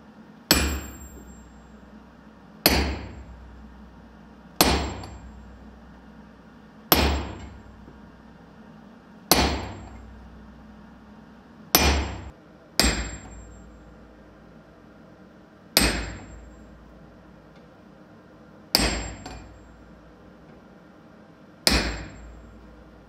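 A sledgehammer strikes a handled top tool held on a red-hot steel bar on the anvil, about ten slow, evenly paced blows roughly every two to three seconds. Each blow is a sharp metallic clang with a high ring that fades within about a second. Two of the blows come close together about halfway through.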